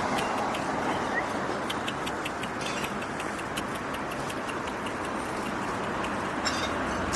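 Steady outdoor street noise with a continuous traffic-like rumble, flecked with sparse, irregular high clicks.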